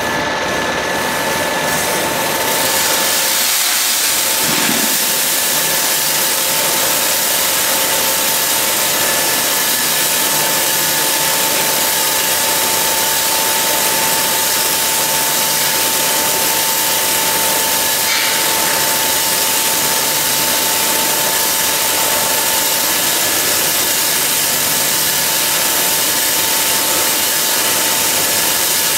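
Drum-type nut and seed roaster running with a steady motor hum, joined about three seconds in by a continuous hiss of roasted seeds pouring out of the rotating drum's discharge chute into a steel tray.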